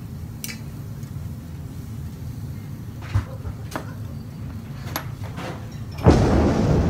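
Light clicks and clinks of metal tongs and a spoon against a grill and a small ceramic condiment pot and its lid, over a steady low hum. About six seconds in, a sudden loud rushing noise starts and keeps going.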